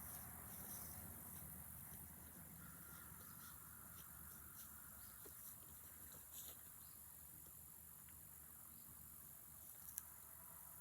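Near silence with a faint, steady insect chorus. A few faint ticks and one sharp click about ten seconds in.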